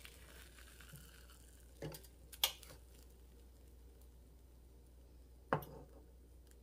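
A spatula knocking lightly against a nonstick frying pan three times as cooked rice cakes are lifted out, the loudest knock about two and a half seconds in.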